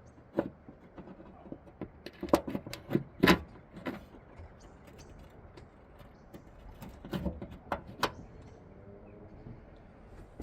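Irregular clicks and knocks of metal parts being handled as a vacuum wiper motor is fitted into place, in two clusters with a pause between.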